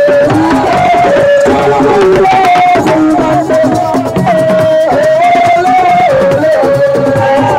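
Live assiko band music: a lead melody held in long, stepping notes over fast, dense hand drumming.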